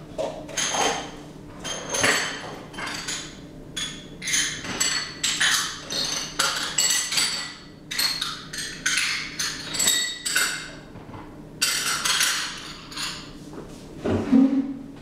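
Irregular clattering and clinking of hard household objects being handled, about two knocks a second, some with a short ring, and a duller thump near the end.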